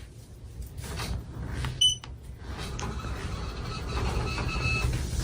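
TroposAir Cresswind ceiling fan running at a middle speed. Its air wash makes a steady low rumble on the microphone that builds a little. A short high electronic beep comes about two seconds in.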